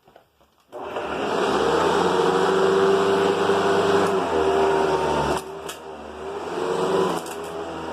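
Vintage Hoover upright vacuum cleaner motor switching on less than a second in and running with a steady hum and whine. It dips briefly about two-thirds of the way through, then builds back up.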